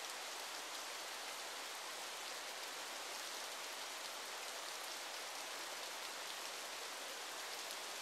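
Steady, even hiss of falling water from a waterfall, with almost no low rumble.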